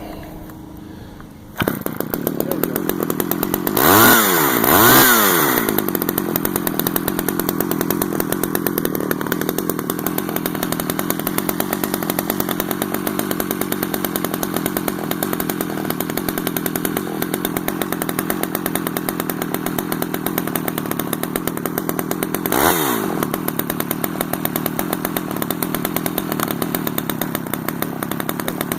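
Stihl 011 AV two-stroke chainsaw starting about a second and a half in, then running at a steady idle. It is revved up and back down twice in quick succession a few seconds later, and once more near the end.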